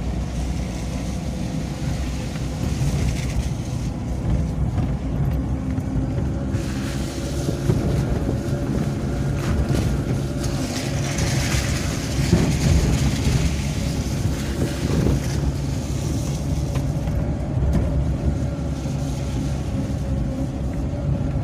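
A car driving slowly on a wet road, heard from inside the cabin: a steady low rumble of engine and tyres, with a hiss that swells for a few seconds about halfway.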